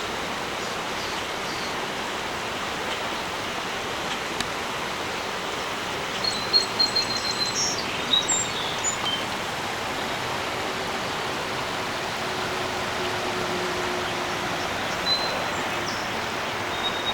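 A steady outdoor rushing noise, with a few short, high bird chirps about six to nine seconds in and again near the end.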